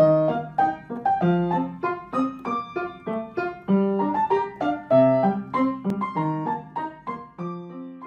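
Background piano music: a quick melody of separate struck notes, several a second.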